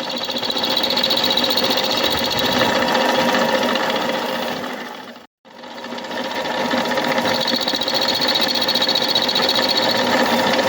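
Universal milling machine running, its cutter milling a flat on a brass nut blank: a steady mechanical whir with a high singing tone. The sound drops out for an instant a little past halfway, then builds back up.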